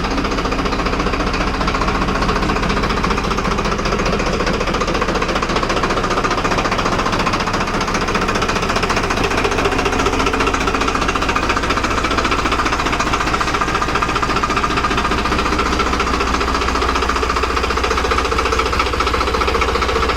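Farmtrac 60 PowerMaxx tractor's diesel engine running steadily with an even, rapid knocking beat.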